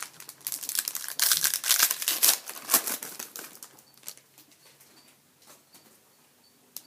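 Wrapper of a Panini Select hockey card pack being torn open and crumpled, crackling for about three seconds, then trailing off into faint handling sounds.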